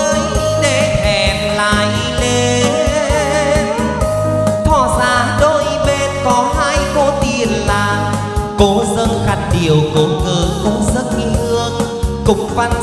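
Live chầu văn (hát văn) ritual music from the cung văn ensemble: a wavering, ornamented melody over a steady drum beat, with singing.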